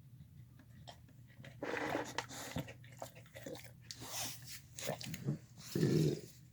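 Dog eating its food: irregular chewing and crunching bites, with the loudest bite near the end.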